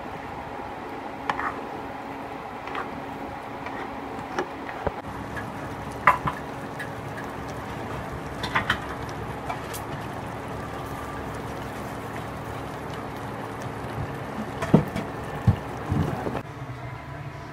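Thick pork-leg kaldereta stew simmering in a pan, with scattered wet pops and clicks from the bubbling sauce over a steady low hum; a few of the loudest pops come near the end.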